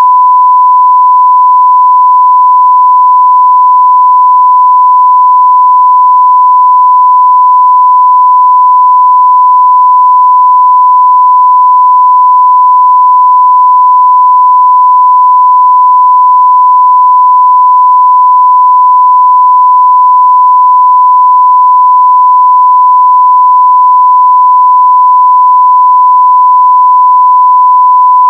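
Censor bleep: a single steady, loud 1 kHz sine-wave tone, held without a break.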